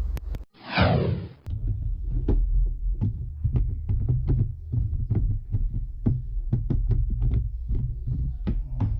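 Samsung washer-dryer running a load: a steady low rumble with regular thumps about three times a second as the drum turns. A falling whine about a second in, just before the thumping starts.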